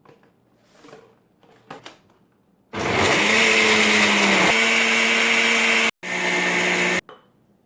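Countertop blender motor running for about three seconds, blending kale, fruit and water into a smoothie, then stopping briefly and running again for about another second. A few faint knocks come before it starts.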